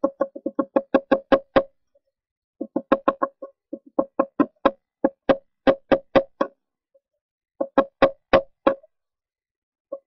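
A red-bellied woodpecker pecking at the wood inside its nest box: runs of loud, sharp knocks, about three to four a second, each ringing at the same pitch, broken by short pauses.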